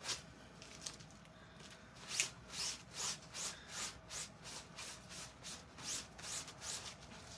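Paper towel wiping a damp plastic silkscreen stencil dry on a waffle-weave towel: light, even rubbing strokes, faint at first and then about two or three a second from around two seconds in.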